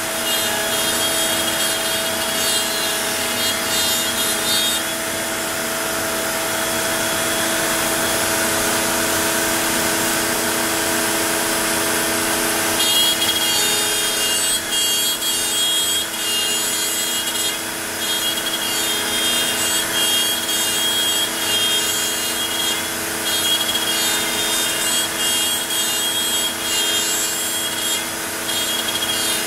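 Onefinity CNC router's spindle running with a steady whine while its bit cuts along the cat outlines. The highest part of the whine drops away for several seconds after about five seconds in, then comes back about thirteen seconds in.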